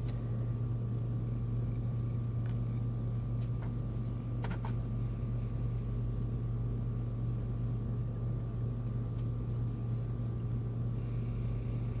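Steady low hum with a faint higher tone above it, and a few soft clicks around four seconds in.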